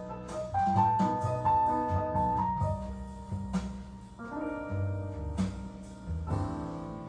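Instrumental passage of a slow ballad: piano melody over a bass line, played back through home hi-fi speakers, a four-way DIY pair driven by a Sansui BA-3000 power amp.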